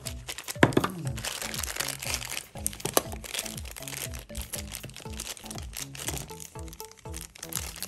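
A toy's crinkly white wrapper being unfolded and pulled open by hand, rustling with a couple of sharp crackles, over background music.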